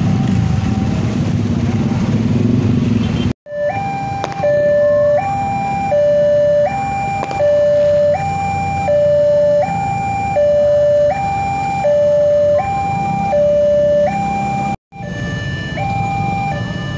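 Railway level-crossing warning alarm sounding through its horn loudspeaker: an electronic two-tone signal that steadily alternates between a lower and a higher tone, each held about three-quarters of a second. It warns that a train is approaching. For the first few seconds, before the alarm, there is a rumble of engine and traffic noise.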